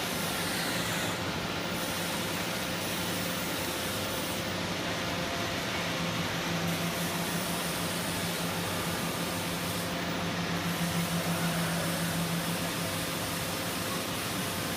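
Rice husk baling machine running: a steady mechanical noise with a low hum that grows stronger about six seconds in and eases off near the end.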